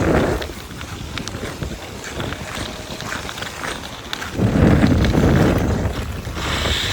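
Ice skate blades gliding and scraping over outdoor canal ice, with wind buffeting the microphone, swelling at the start and again about four and a half seconds in.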